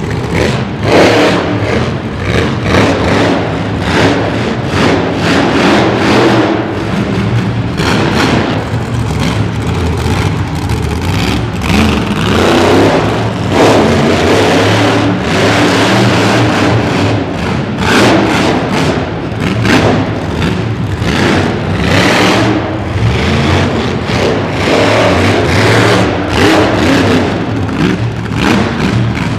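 Monster Mutt Rottweiler monster truck's supercharged V8 engine revving hard in repeated surges as the truck wheelies over dirt mounds and climbs onto junk cars.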